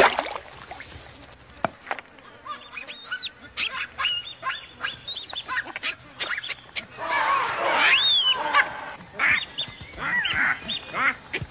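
Baboons screaming in alarm again and again, with many short, high, arching cries and a denser run of them past the middle. A sudden loud burst comes right at the start.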